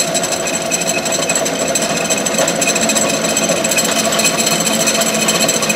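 Clausing 6903 metal lathe running under its variable-frequency drive, a steady mechanical running noise with a rattly texture, as its spindle speed is turned up from about 270 to 330 rpm.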